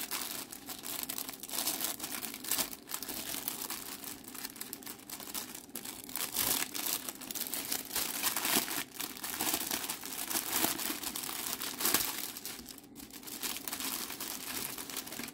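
Clear plastic packaging bags crinkling and rustling in the hands as they are opened, with dense, irregular crackles throughout.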